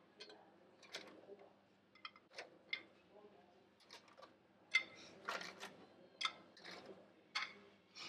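Baked cookies being picked off a parchment-lined baking tray and set one by one onto a plate: about a dozen light, irregular clinks and taps, some ringing briefly.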